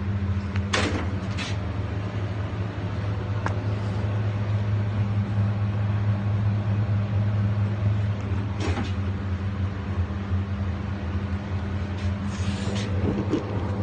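A steady low mechanical hum, with a few short knocks and clicks now and then.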